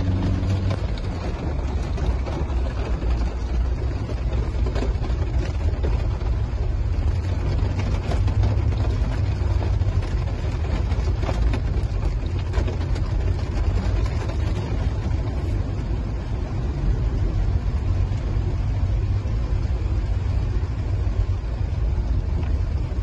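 Car driving through flood water in heavy rain, heard from inside the cabin: a steady low rumble of engine and road noise, with the hiss of tyres in standing water and rain hitting the windscreen.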